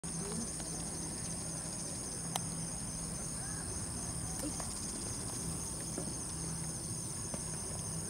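Steady high-pitched chorus of insects, with a faint low hum beneath and a few light clicks.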